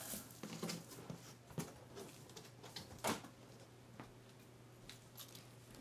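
Packaging of a boxed 3D printer being handled during unboxing: scattered soft knocks and rustles, the loudest knock about three seconds in, over a faint steady hum.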